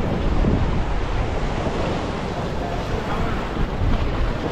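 Sea swell surging and breaking in white foam against a rock ledge, with wind buffeting the microphone as a steady low rumble.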